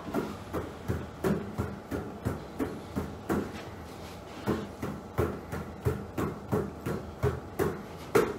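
Quick thumps and slaps, about three a second with a short pause near the middle, from lunge leg wraps: a basketball smacking from hand to hand around the legs while the feet land on a carpeted floor.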